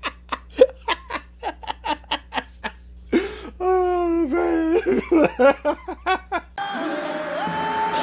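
A man laughing hard in rapid short bursts, about five a second, then in longer, wavering laughs. Music starts near the end.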